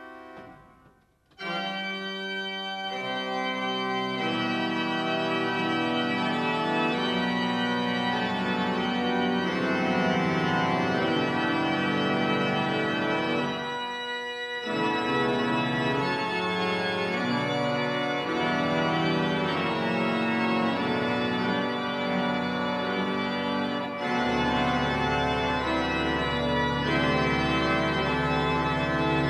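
Restored church pipe organ playing a fanfare in full, sustained chords. After a short gap about a second in, the chords enter, with a brief break midway. A deep pedal note comes in near the end and holds beneath the chords.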